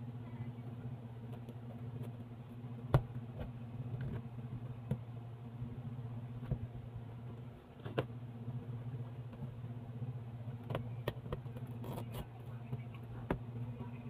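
Scissors cutting packing tape on a cardboard box, with the cardboard flaps being handled: scattered sharp clicks and snips, the loudest about three seconds in, over a steady low hum.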